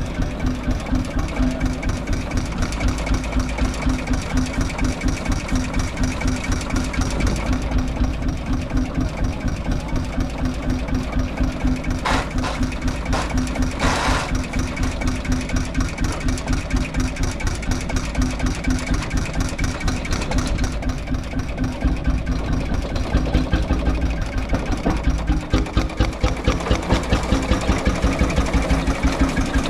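A tractor's 15 hp single-cylinder hot bulb engine running with an even beat of about four strokes a second, growing louder in the second half. Two short hisses sound around the middle.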